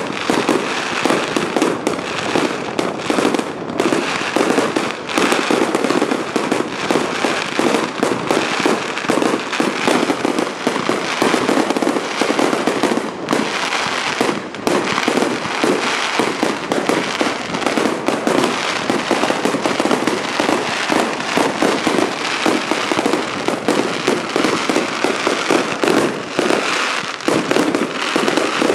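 Fireworks display: aerial shells bursting overhead in rapid succession, a dense, unbroken stream of bangs and crackling.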